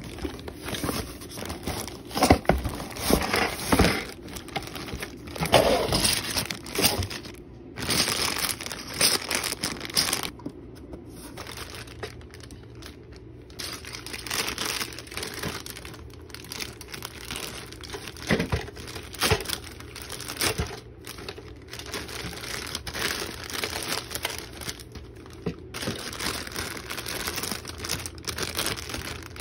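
Clear plastic bags crinkling and rustling as they are handled, in irregular crackles. The crackles are louder in the first several seconds and quieter for a few seconds a little before the middle.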